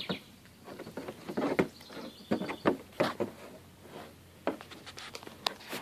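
Goat kids' hooves tapping and scraping on a plastic cooler lid as they scramble and tussle on it: irregular light knocks.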